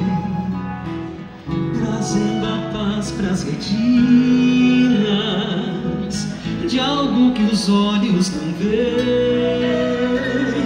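Live regional Gaúcho folk song: acoustic guitar accompaniment with a flute melody and a man singing.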